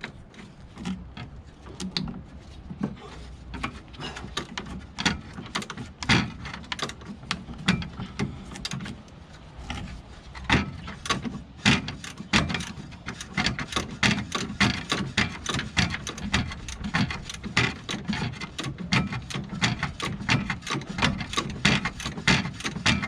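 A run of quick, irregular clicks and knocks of hand tools working on metal, growing busier about halfway through.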